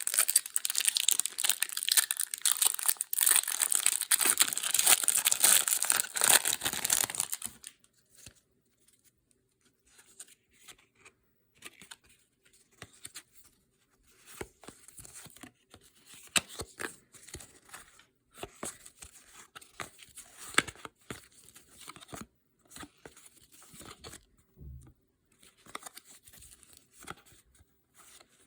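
A 1992-93 Fleer Ultra Series II basketball card pack's wrapper being torn open and crinkled, loud and crackly for about the first seven and a half seconds. After that, quieter scattered clicks and short rustles of the cards being handled.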